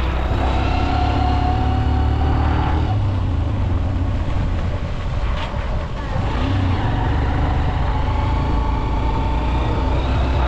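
Motorcycle engine running as the bike rides along a dirt road, its loudness dipping briefly about five seconds in before picking up again.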